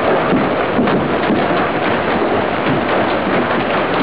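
Heavy hail, stones the size of golf balls, pelting down on lawn and patio: a steady roar made of countless small impacts.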